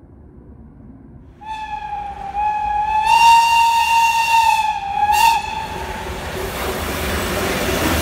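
Old-type German electric locomotive's compressed-air whistle giving one long blast of about four seconds, a single high tone with a short sharper burst near its end. It is followed by a growing rush of noise.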